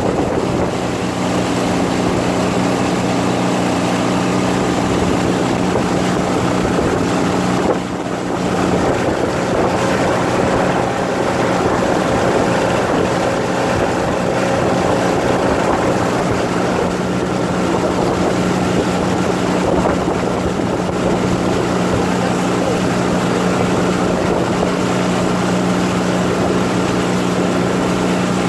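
Engine of a rigid inflatable boat running steadily under way, a continuous drone, with water rushing past the hull and wind on the microphone. The level dips briefly about eight seconds in.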